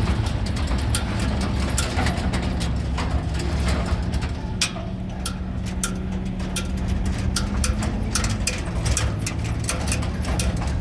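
A motor vehicle's engine running steadily, its pitch shifting briefly about eight seconds in, with many sharp clicks and rattles over the hum.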